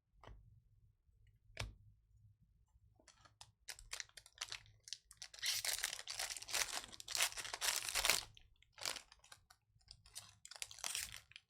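Foil baseball-card pack wrapper being torn open and crinkled, with the cards handled. There are two sharp clicks in the first couple of seconds, then dense crackling and tearing for several seconds, loudest around the middle.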